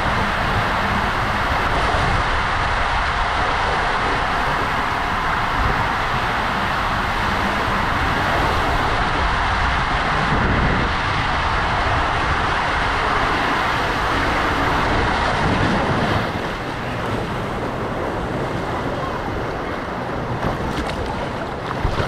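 Rushing water and an inflatable tube sliding fast through an enclosed water-slide tube (a WhiteWater West Constrictor), a steady loud rush that eases a little about sixteen seconds in.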